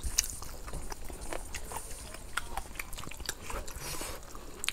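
People chewing food with their mouths, with many small wet clicks and lip smacks scattered irregularly. The food is grilled chicken wing and spicy papaya salad.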